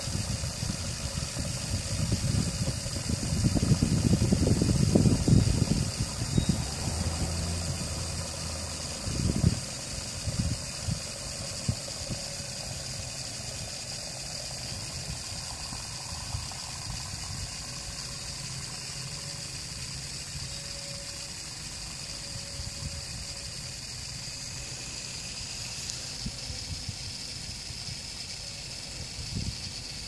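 Casite EZ Connect aerosol tire sealant can discharging through its hose into the tire valve, giving a steady hiss as the foam and propellant fill the flat tire. Low rumbling gusts and a few knocks come in the first ten seconds or so, then settle.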